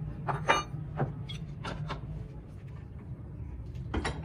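Metal clinks and taps from hand tools and a small steel gate valve being handled in a bench vise. One clink rings clearly about half a second in, and a few more come near the end, over a steady low hum.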